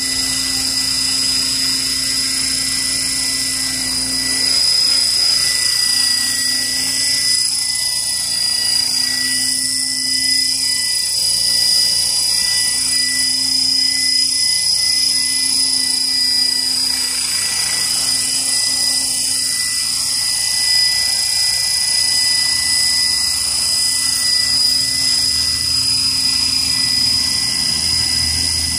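Align T-Rex 600 radio-controlled helicopter hovering, its motor and rotor running steadily with a high whine throughout.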